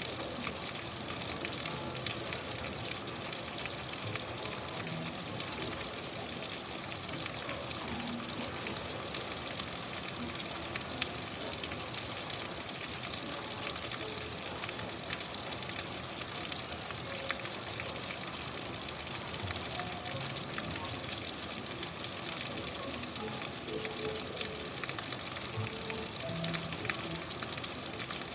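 Steady rain, a dense, even patter of drops with a few sharper single drop hits.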